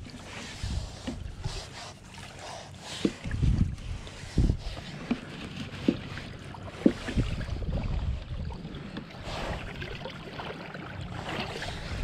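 Wind buffeting an action camera's microphone as an uneven low rumble, with a scatter of small knocks and rustles from hands and gear being handled.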